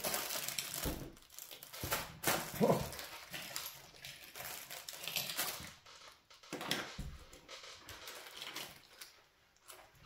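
Plastic wrappers crinkling and small plastic toys knocking together as a bowl of bagged fidget toys is rummaged through, in irregular bursts that die down near the end.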